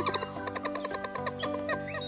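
Playful cartoon background music: a rising swoop at the start, then a quick run of short, chirpy pitched notes and light clicks over held lower notes.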